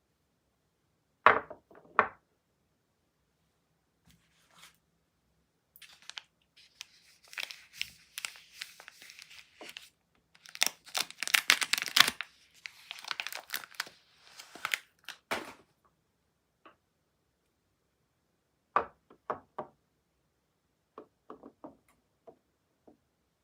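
Soap packaging being torn open and crinkled, with a long stretch of rustling in the middle. Two sharp knocks come about a second in, and a few short taps come near the end.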